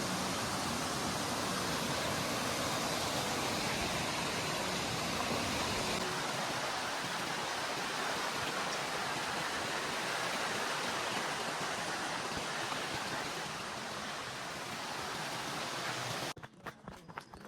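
A steady rushing noise that cuts off suddenly near the end, leaving a few light taps.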